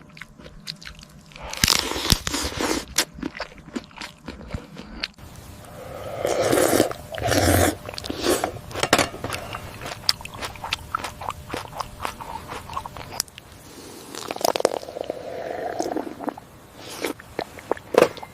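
Close-up mukbang eating sounds: biting, chewing and crunching with many sharp mouth clicks, growing louder in several spells.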